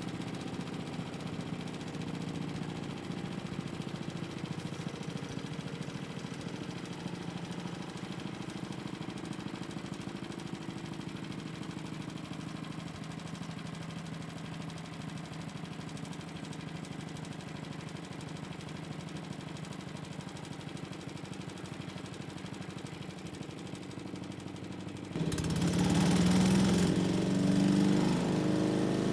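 Engine running steadily, then about 25 seconds in it gives way abruptly to a louder, harsher engine sound with more rushing noise.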